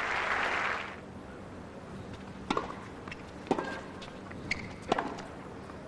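Short burst of crowd applause dying away, then sharp tennis ball strikes off racket strings, roughly a second apart, as a rally is played.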